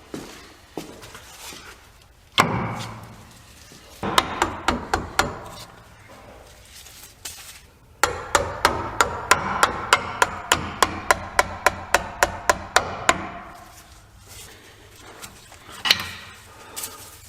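A hammer striking metal. There is one hard blow, then a short run of quick taps, then a longer even run of about four taps a second with a ringing tone between them, and a last blow near the end.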